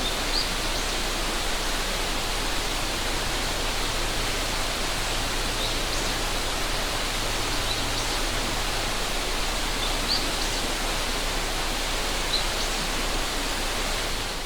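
A river rushing steadily, with a few brief, high bird chirps scattered through it.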